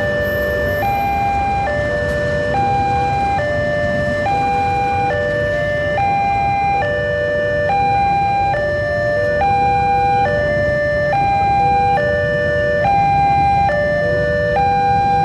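Railway level-crossing warning signal: an electronic chime of three stepped tones, high then middle then low, repeating about every 1.7 seconds. Under it runs a steady low rumble from the passing train and the waiting motorcycles.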